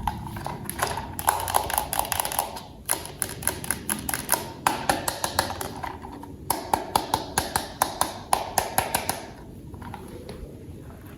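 Rapid clicking and tapping of plastic toy parts being handled, in three runs of several clicks a second, quieter near the end.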